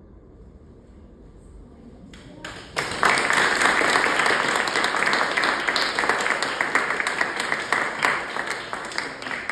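Audience applauding: many hands clapping, starting about two and a half seconds in and beginning to thin out near the end.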